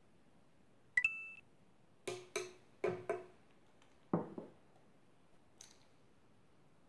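A short electronic chime, then four quick ringing taps of a measuring spoon against the yeast jar, and a duller knock as the jar is set down on a wooden table.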